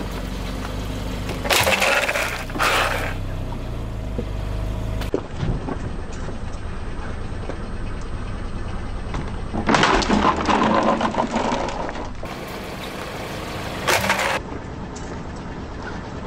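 A car creeps forward over asphalt toward a plastic toy, with a low engine hum. There are several short bursts of crunching and cracking: the longest, about ten seconds in, lasts around two seconds.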